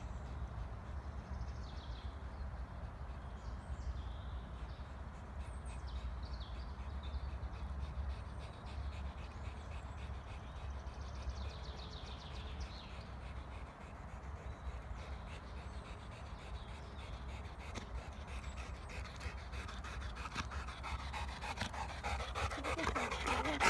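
A Labrador retriever panting over a steady low rumble, the panting growing louder and closer over the last few seconds.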